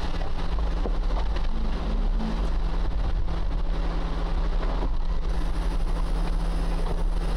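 4x4 vehicle driving slowly along a rough dirt trail: steady engine and tyre noise with a heavy low wind rumble on the microphone.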